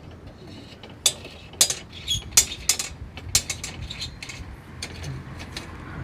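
Metal parts of a kerosene pressure lantern clicking and clinking as its outer hood is taken off to expose the burner: a string of sharp, irregular clicks, several of them loud.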